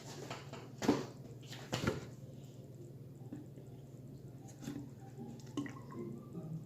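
Two brief knocks about a second apart, then faint scattered taps and rustles over a steady low hum: small handling noises.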